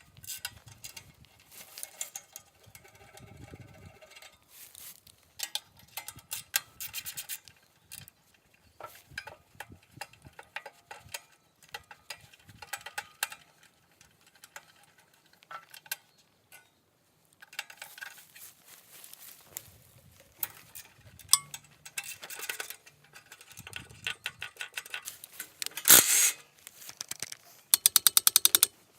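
Hand tools clinking and knocking on small engine parts and bolts during disassembly, with a ratchet wrench clicking rapidly near the end.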